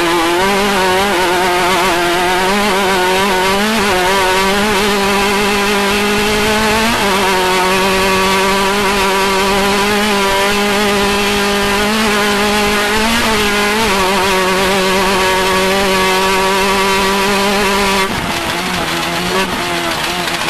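Off-road race vehicle's engine running hard at high, steady revs, its pitch briefly dipping and climbing back a few times, a little quieter and more uneven near the end.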